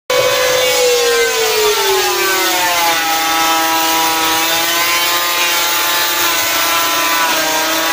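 Electric hand planer running at speed on a sliding wooden carriage. Its motor whine falls in pitch over the first few seconds, then holds steady over a loud hiss.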